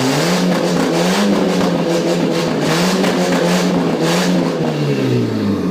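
Volkswagen Polo 86c engine running loud and raw through an open exhaust manifold; its note climbs in the first second, holds high with small wavers, then drops away near the end.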